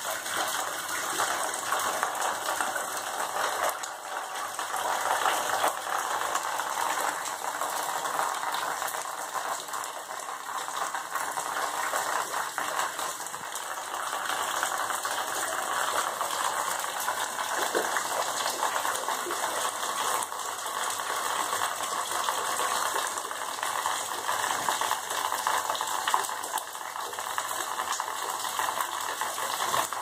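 Water leaking through a sagging, water-damaged plaster ceiling and falling in thin streams, splattering onto the floor below in a steady dense patter. The residents take it for water from the upstairs neighbours' shower.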